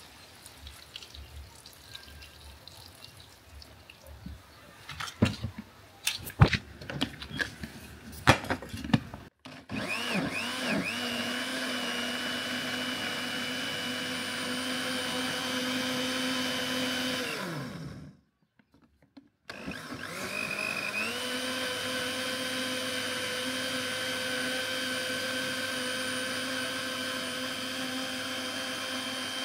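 Electric blender blending African basil leaves: a few sharp knocks and clicks, then the motor spins up with a rising whine and runs steadily, winds down and stops after about eight seconds, then starts again and runs on.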